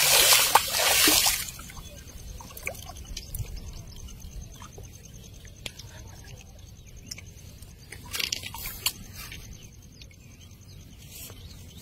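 Shallow paddy water splashing and sloshing as a cast net is dragged in by its rope, loudest in the first second and a half, then quieter dripping and trickling. Another short splash comes about eight seconds in.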